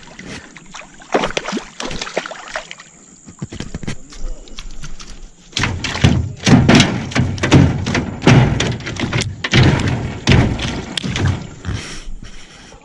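Hooked pacu being lifted out of the water on the rod, thrashing: irregular splashes and thuds, sparse at first and then a quick, loud run of them from about the middle until near the end.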